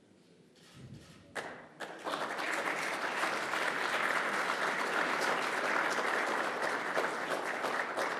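Audience applauding: a few first claps about a second and a half in, then steady applause from a room full of people.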